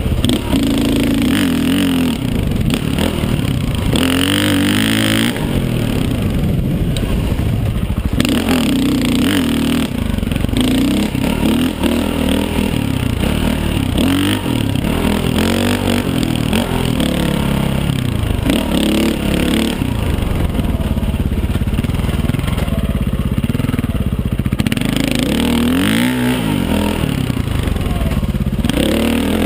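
KTM 525 dirt bike's single-cylinder four-stroke engine running hard on a trail ride, its revs rising and falling again and again as the throttle is opened and closed.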